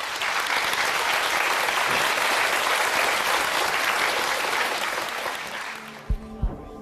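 Audience applauding, dying away after about five seconds. Music with a regular low beat starts near the end.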